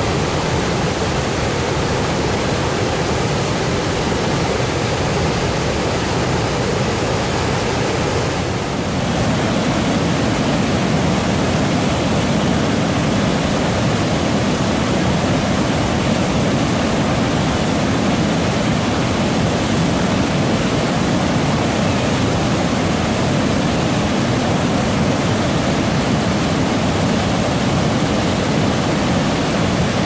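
Millstone River waterfall in heavy winter flow: a loud, steady rush of falling water, which dips briefly about nine seconds in.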